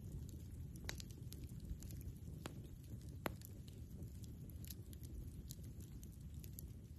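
Wood campfire crackling: irregular small snaps and pops, a few sharper ones in the first half, over a low steady rumble.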